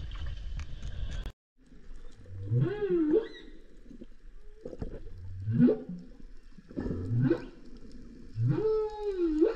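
Humpback whale song: four calls about a second and a half apart, each sweeping upward in pitch, the first and last dipping and rising again near the top.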